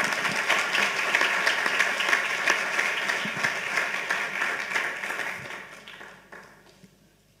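Audience applauding, many hands clapping at once, dying away over the last two seconds.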